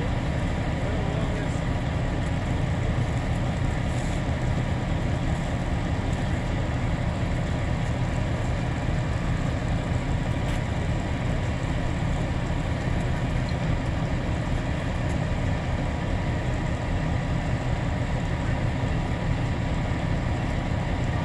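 A large vehicle engine idling steadily, an even low hum with no change in speed.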